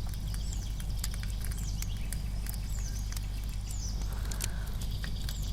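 Crackling campfire sound bed: irregular sharp pops and snaps over a steady low rumble, with a few faint high chirps.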